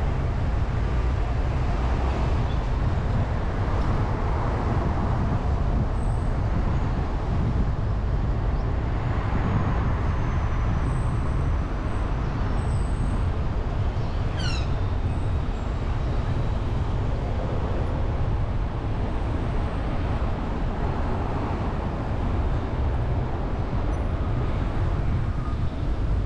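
Steady road and traffic noise from a car driving along a city road: a constant deep rumble of tyres and engine. About fourteen seconds in, a brief high squeak falls quickly in pitch.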